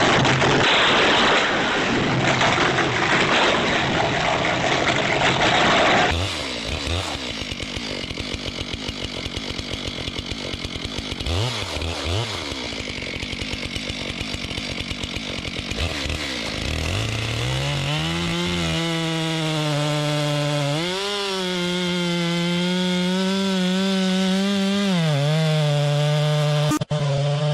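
Chainsaw engine: after a loud, rushing noise that cuts off about six seconds in, the saw blips its throttle a few times, then from about seventeen seconds runs at high, steady revs that rise and fall slightly.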